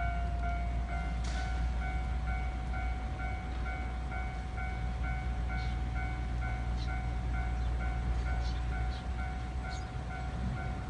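Japanese level-crossing warning bell ringing steadily, about two and a half strikes a second, over the low rumble of a train passing the crossing, with a few short high squeaks now and then.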